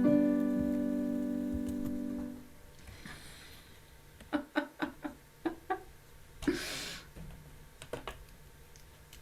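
A held piano chord closes a song and fades out over the first two and a half seconds. After a pause, six short notes are played in quick succession, followed by a brief hiss.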